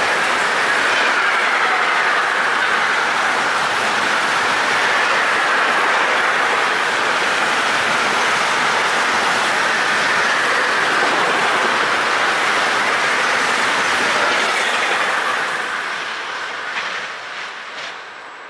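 A freight train of wagons carrying lorry semi-trailers running past at speed: a loud, steady rush of wheels on rail with a high tone that drifts slowly lower. About fifteen seconds in the noise starts to fade as the last wagons go by, with a few sharp clicks near the end.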